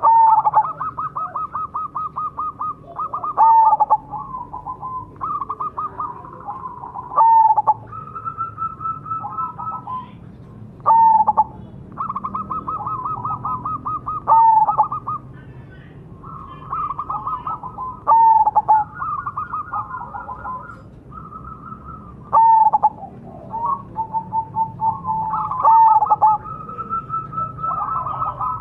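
Zebra dove (perkutut) song: phrases of rapid stuttering coos, each ending in a louder downward-sliding coo, repeating about every three to four seconds.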